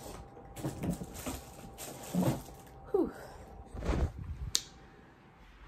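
A woman coughing and gasping in several short fits, each with a falling pitch, choking on water that went down the wrong way.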